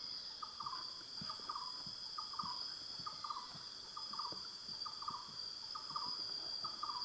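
Tropical insect chorus: several insects shrilling steadily at high pitch, with a pulsed chirping call near 1 kHz repeating about once a second.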